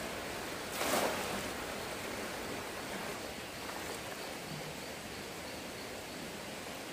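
Steady rushing of a flowing stream, with a short, louder swish about a second in.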